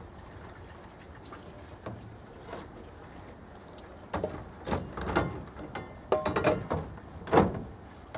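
Hand dish-washing: metal plates and pans clinking and clattering against a metal wash basin and in a plastic dish rack. After a quiet first few seconds, a run of sharp knocks and clinks begins about four seconds in, some with a short metallic ring.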